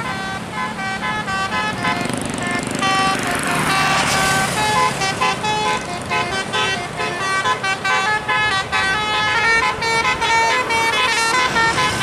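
Bus telolet (basuri) multi-tone horn playing a quick melody of short, stepping notes, with a brief rushing hiss swelling about four seconds in.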